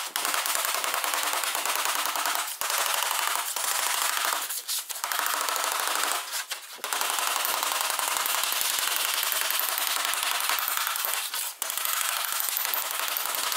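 Hand hammer and dolly rapidly striking the edge of a sheet-steel body panel, rolling the edge over into a flange. The blows come very fast in long runs, broken by a few brief pauses.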